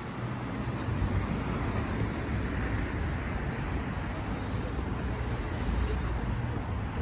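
City street traffic: a steady wash of road noise with a low engine rumble underneath.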